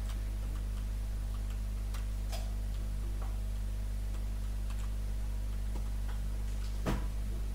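Steady low electrical hum with sparse, irregular light clicks, and one louder click near the end.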